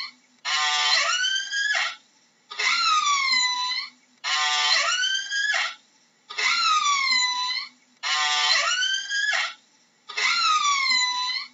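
Killer whale (orca) calls: two call types alternating, about one every two seconds. One dips and then rises in pitch, and the other is a buzzy pulsed call that sweeps upward at its end.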